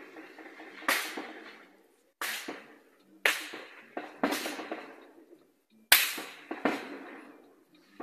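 Gunshots heard from inside a bus: about seven single sharp reports, irregularly spaced roughly a second apart, each with a short echoing tail.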